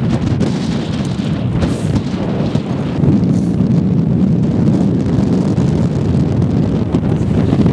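Strong wind buffeting the camera microphone: a loud, continuous, unsteady low rumble that grows a little louder about three seconds in.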